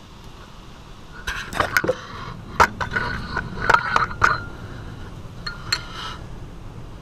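Metal clinking, rattling and scraping of a rear drum brake shoe assembly and its springs being worked loose and lifted off the axle, with short ringing metallic notes. A busy run of clinks in the first half, then a few more near the end.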